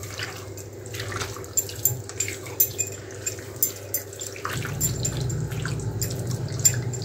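Wet squelching and squishing of a hand kneading raw chicken pieces into a curd and spice marinade in a steel bowl, with small clicks against the bowl. A low rumble comes in about halfway and stays to the end.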